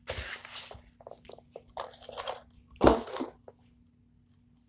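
Pop tube fidget toys being handled: crunchy plastic rustling at the start, scattered clicks, and a louder crunch about three seconds in, then near silence.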